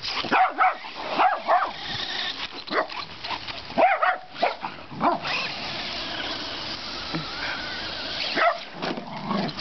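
A dog barking and yipping: a quick string of short calls in the first couple of seconds, then single barks every second or so, with a lull in the middle.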